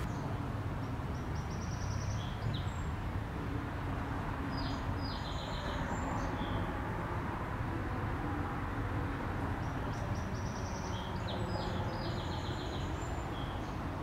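Steady low background rumble, with a bird singing a short high phrase of quick, evenly spaced notes three times over it.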